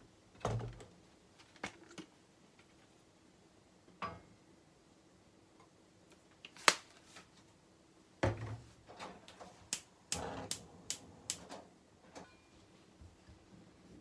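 Kitchen items set down one by one on a counter, among them a plastic bottle and a small stainless steel bowl: scattered light knocks and clinks, with a sharp clink about seven seconds in and a busier run of small knocks a little after.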